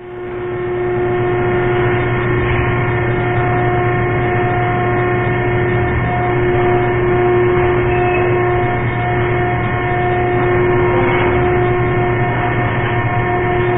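Loud, steady machinery drone of slaughter-plant equipment: a constant low hum with a higher steady tone over a noisy bed, unchanging throughout.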